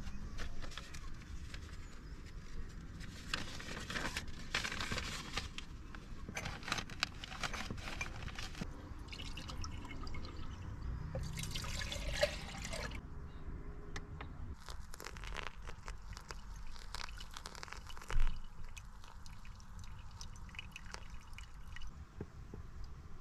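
Water poured from a mug into an electric kettle, amid clatter of cups and gear being handled, with one sharp knock near the end.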